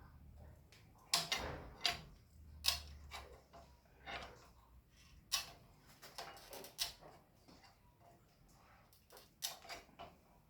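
Irregular metallic clinks and knocks from bicycle crank parts being handled and set down, a dozen or so sharp strikes, the loudest in the first two seconds and about five seconds in.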